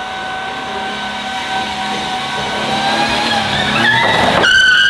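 Small mini truck driving, a steady whine from its engine and drivetrain that climbs in pitch as it picks up speed near the end.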